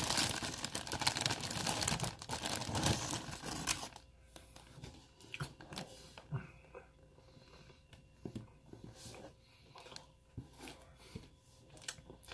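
Clear plastic food packaging crinkling as an almond cookie is pulled out of it, a dense crackle for about the first four seconds, then only scattered faint rustles and clicks.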